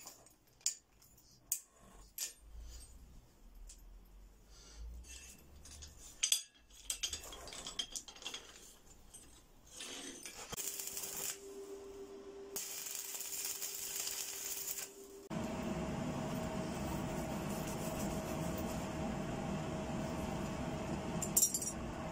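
Flat steel pieces clinking and tapping as they are stacked on an anvil, then an electric welder crackling and hissing for a few seconds as the stacked billet is tack-welded in a vise. From about two-thirds of the way through, a louder steady rushing noise with a low rumble and a held tone: the coal forge running under its air blast.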